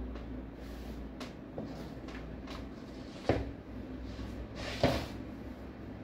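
Slip-on canvas sneakers being pulled off and dropped to the floor: two dull knocks about a second and a half apart, with small clicks between.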